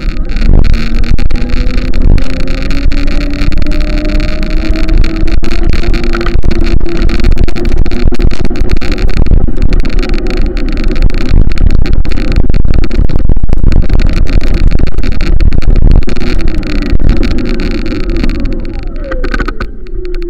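An engine running with a loud rushing noise over it; its pitch climbs slowly, then falls away near the end as it gets quieter.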